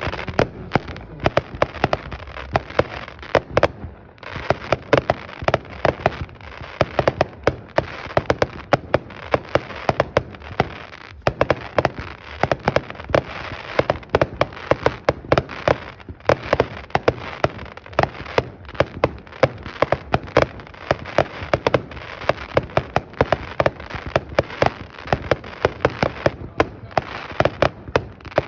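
Red Apple Fireworks 'Tokyo Rose' firework going off: a long, dense run of sharp cracks and pops, several a second, over constant crackling.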